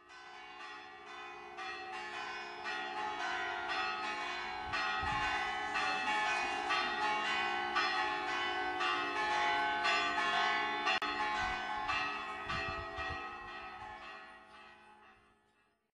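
Church bells pealing: a rapid run of overlapping strikes over steady ringing. It fades in at the start, swells through the middle and fades away near the end.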